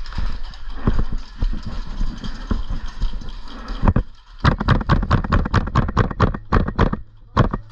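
Hurried footsteps. In the first half they are uneven knocks over a rustling haze; in the second half they become a quick, even run of sharp knocks, about six a second.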